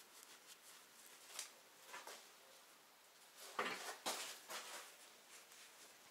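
Faint rustling and rubbing of a rag being worked in the hands, with a cluster of louder rustles a little past halfway.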